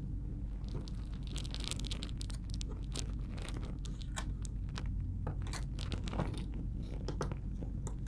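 Fingernails picking and scratching at the sticker over a laptop's M.2 SSD: a run of small irregular crinkles and scrapes.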